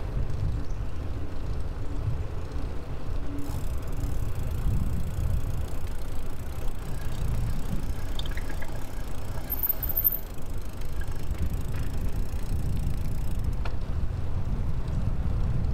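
Steady low rumble of a bicycle ride: wind buffeting the microphone over tyres rolling on pavement.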